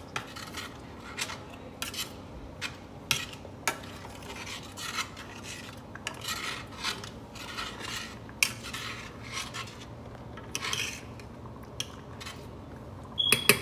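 Metal spoon stirring cheese sauce in a stainless steel saucepan: an irregular run of scrapes along the pan and clinks against its sides, with a sharper clink that rings briefly near the end.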